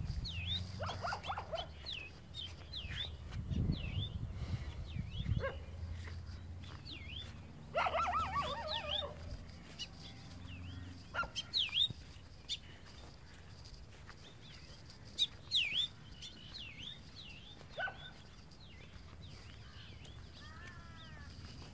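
Small birds chirping over and over, with a dog barking briefly about a second in and again around eight seconds in. A low rumble lies under the first few seconds.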